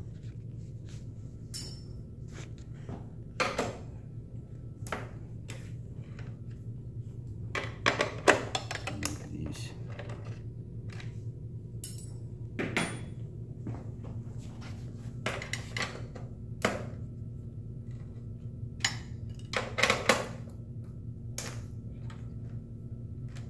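Scattered sharp clicks and knocks of a motorcycle tail section's plastic parts, wiring connectors and tools being handled, with the loudest around the middle and near the end, over a steady low hum.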